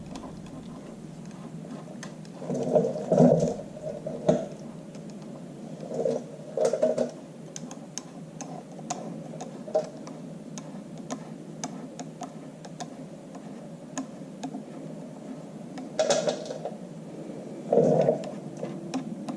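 Small metallic clicks and scrapes of a hand tool turning the reactor band adjusting screws down in a tractor's PTO housing, with a few louder brief clattering bursts of metal on metal over a steady low hum.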